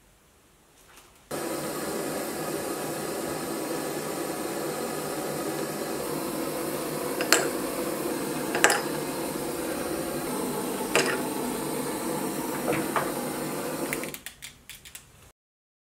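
Hot steel T-nuts quenched in linseed oil: a steady sizzle starts suddenly about a second in, with a few sharp pops in the second half, then dies away into scattered crackles near the end. The hot oil treatment blackens the steel to resist corrosion.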